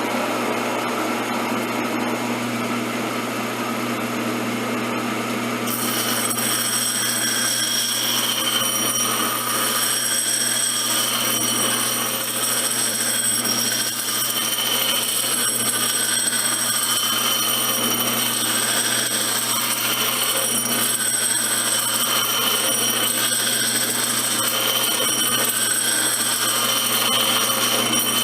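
Shopsmith 10ER combination machine running as a grinder: a steady motor hum with high whining tones. The mushroomed steel of an old mortising chisel is being ground down against the wheel.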